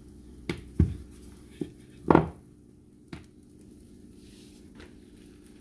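Light knocks and handling noises as a raw flour tortilla is turned by hand in a skillet, the loudest a short scuffing knock about two seconds in, over a faint steady low hum.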